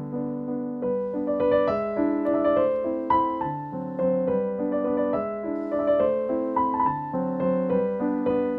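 Background piano music: a gentle melody of struck notes over chords at an even pace.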